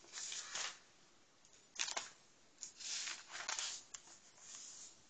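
Faint rustling of paper in about four short bursts as Bible pages are turned to find a passage.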